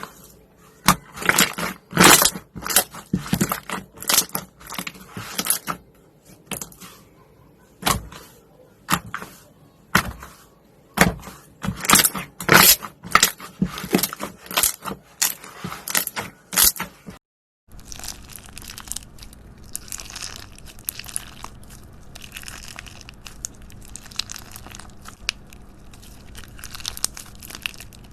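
Slime being squeezed and pressed by hand, with irregular clusters of loud, sharp clicks and pops. After a brief cut about 17 seconds in, quieter, finer crackling follows over a steady low hum.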